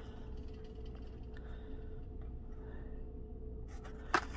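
Faint handling of blister-carded toy cars and a cardboard case over a steady low hum, with one short sharp rustle about four seconds in.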